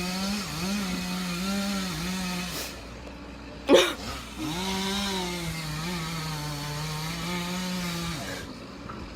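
Chainsaw running at high revs as it cuts into a tree trunk, ring-barking it, its pitch dipping a little under load. It drops away about two and a half seconds in, a sharp knock sounds near four seconds, then the saw runs again until about eight seconds in.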